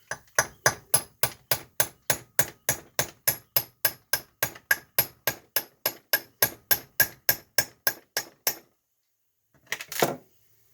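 Hammer striking metal in a fast, steady series of about thirty blows, around three or four a second, each one ringing, then stopping; after a pause, a couple more hits near the end. This is hammering on a Chrysler 8 3/4 differential carrier to free a piece jammed in it.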